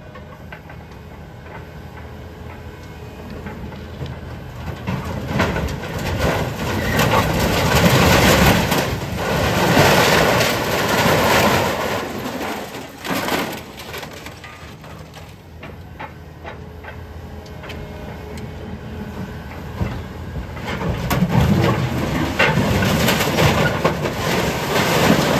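Scrap metal crunching and grinding over a running engine, swelling loud twice, with scattered clanks.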